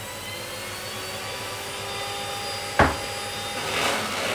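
Electric hand mixer running steadily in a bowl of batter, with a sharp knock about three seconds in and a short hiss near the end.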